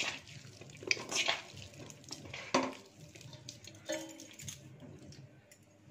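Boiled potatoes being mashed by hand in a large steel bowl: soft squishing, with a few sharp clinks and knocks against the metal bowl.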